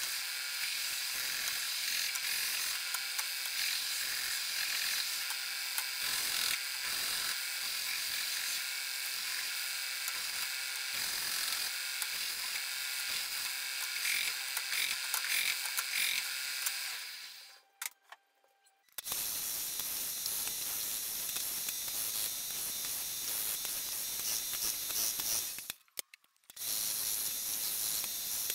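Edge belt sander grinding a laminated hardwood cutting board pressed against its belt: a steady hissing rasp of abrasive on wood that breaks off briefly twice.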